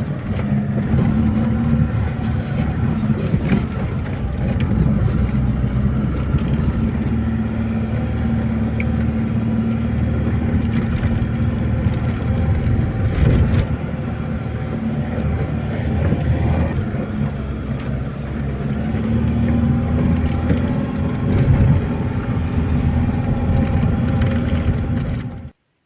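Car engine running steadily, a low even hum that cuts off abruptly near the end.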